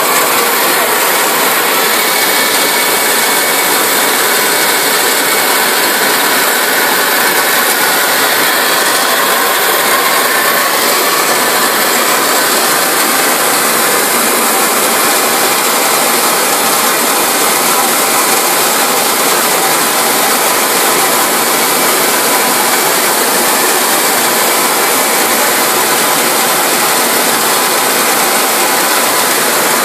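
Fruit and vegetable brush washing machine running with its high-pressure water spray on: a steady, loud rushing hiss of water jets with a faint, even machine hum under it.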